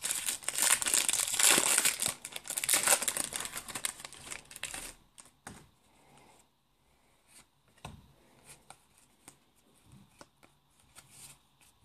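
Foil wrapper of a Pokémon trading card booster pack being torn open and crinkled for about five seconds. Then a few faint scattered clicks and rustles.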